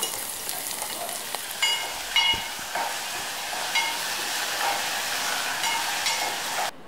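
Food sizzling in a metal pot on a gas stove while a metal spoon stirs it, clinking against the pot several times with a short ring. The sound cuts off suddenly near the end.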